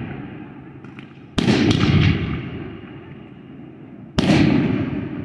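Two aerial firework shells bursting close overhead, one about a second and a half in and the next near the end. Each gives a sharp bang followed by a long rolling rumble that fades.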